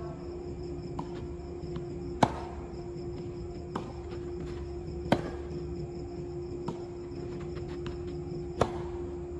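Tennis ball struck by rackets in a doubles rally: three loud, sharp hits about three seconds apart, with fainter knocks between. A steady hum runs underneath.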